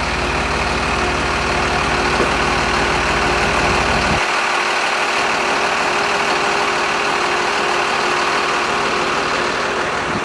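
Flatbed tow truck's engine idling steadily, with a low rumble and a steady hum. The deepest part of the rumble drops away abruptly about four seconds in, while the idle carries on.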